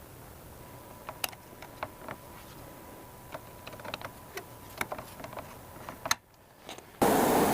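Irregular light clicks and taps, a dozen or more spread unevenly, over a faint steady whine. Loud music cuts in near the end.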